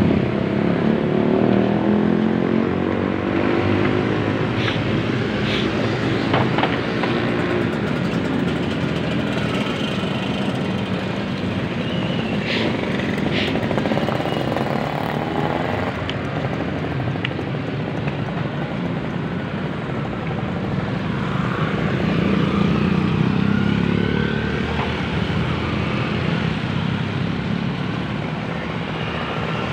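Street traffic: motorcycle and car engines running as they pass, a continuous noise that swells near the start and again about three-quarters of the way through as vehicles go by close.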